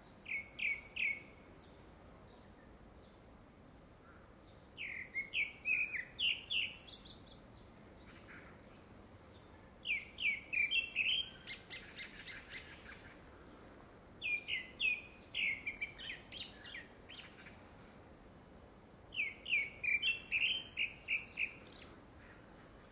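Male grey-backed thrush singing: five short phrases of quick repeated notes, each ending in higher, thinner notes, one about every five seconds. The uploader takes it for courtship song ahead of a second brood.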